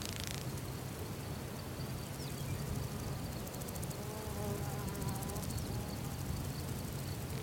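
Insects buzzing in open grassland over a steady low rumble. A wavering insect drone passes about four to five seconds in.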